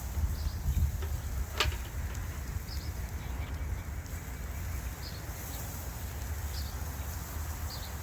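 Outdoor ambience: a steady low wind rumble on the microphone, with short high chirps of small birds every second or so. One sharp click comes about a second and a half in.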